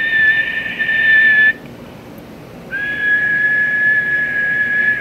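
A person whistling two long steady notes at the same pitch into a CB radio microphone, the first a little under two seconds, the second about three seconds long starting roughly halfway through. A steady whistle fully modulates the AM transmitter for a peak power reading.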